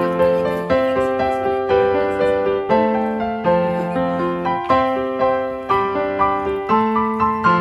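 Background piano music: gentle notes struck at an even pace, each one fading after it sounds.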